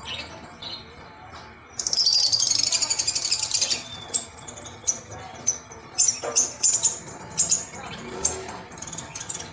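Water splashing and sloshing in a plastic basin as a hand swishes a rubber toy through it, with a run of short sharp splashes. From about two to four seconds in there is a rapid high rattle.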